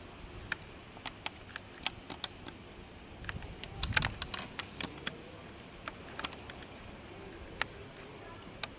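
Steady high chirring of crickets, with scattered sharp clicks and taps over it, a cluster of them about four seconds in.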